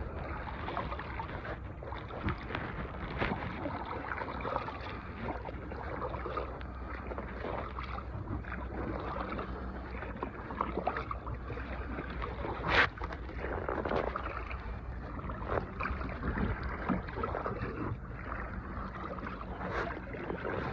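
Small boat on the water: a steady wash of water and hull noise over a low hum, with scattered knocks and clicks. The sharpest click comes about thirteen seconds in.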